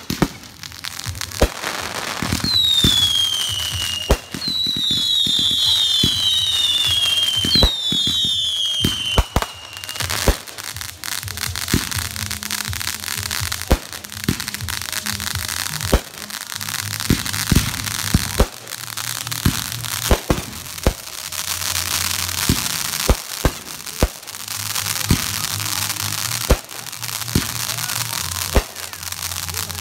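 Backyard fireworks going off: a long run of sharp bangs and crackling, with several whistles that fall in pitch about three to ten seconds in.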